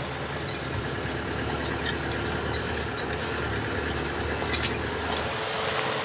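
Steady engine and road rumble of a vehicle driving over a bumpy dirt road, heard from inside the vehicle, with a few short sharp rattles, the loudest about four and a half seconds in.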